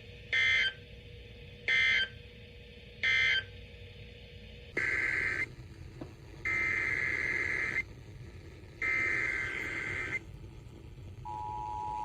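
Emergency Alert System digital data bursts: three short, evenly spaced end-of-message bursts, then three longer header bursts announcing the next alert. The steady two-tone EAS attention signal comes in about a second before the end.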